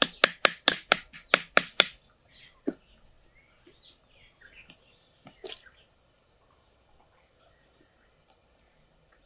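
Hammer blows in quick succession, about four a second, that stop about two seconds in. A steady high-pitched insect trill then fills the rest, with a couple of single knocks.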